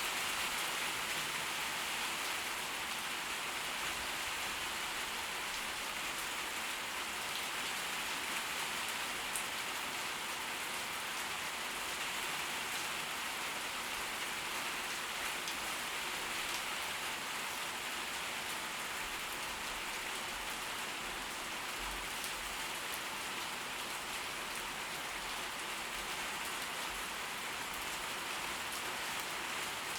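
Steady tropical-storm rain falling, an even hiss of drops on surfaces.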